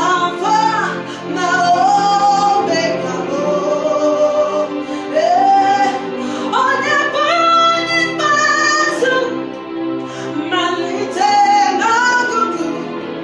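A voice singing a slow worship song, with long held notes, over sustained instrumental accompaniment.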